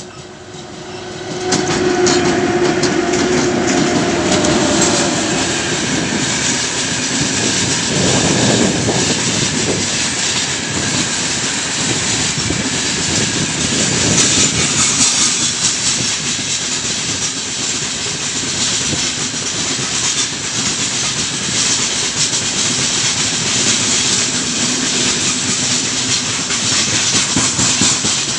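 A 3ES5K 'Ermak' electric locomotive passes close about a second and a half in, with a humming tone for a few seconds. Then a long freight train of loaded open wagons rolls past in a steady loud rumble, its wheels clattering on the rails.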